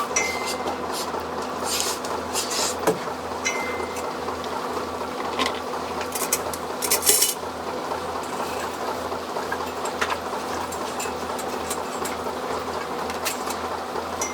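Dairy barn milking equipment running: a steady hum with a pulsing low throb, with scattered metal clinks and clanks throughout.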